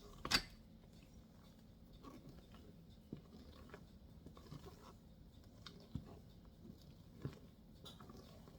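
Rubber spatula cutting and folding meringue into cake batter in a mixing bowl: soft, scattered scrapes and light taps against the bowl, with one sharp knock just after the start.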